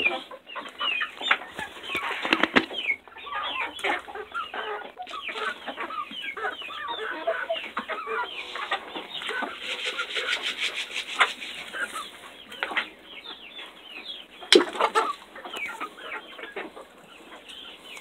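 A flock of chickens clucking and chattering excitedly as they feed on freshly scattered mealworms, a dense run of short high calls with scattered sharp clicks. One sharp knock stands out late on.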